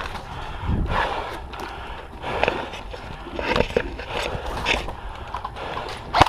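Footsteps and scuffing gear as the player moves, with knocks about once a second over a low wind rumble on the microphone.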